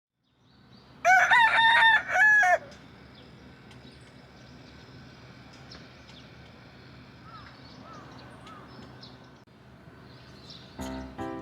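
A rooster crowing once, a loud cock-a-doodle-doo lasting about a second and a half, followed by faint steady outdoor background with a few small bird chirps. Music comes in near the end.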